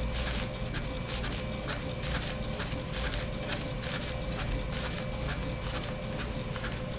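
HP all-in-one inkjet printer printing a photo, its print-head carriage shuttling back and forth in a steady rhythm of about three passes a second over a constant whine, as the sheet feeds out line by line.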